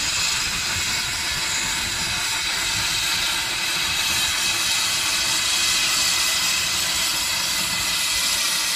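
Steam locomotive letting off steam in a steady, continuous hiss.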